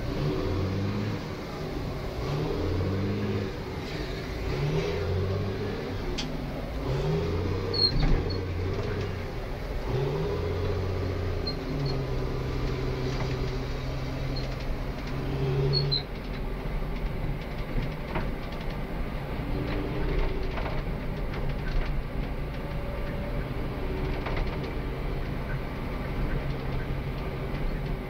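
Tugmaster terminal tractor's engine heard from inside the cab, revving up and dropping back in short repeated rises, then running at a steady pitch from about halfway through.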